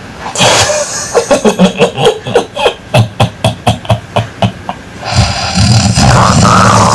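A man laughing in a quick run of short ha-ha pulses, about four a second, then a loud snore starting about five seconds in.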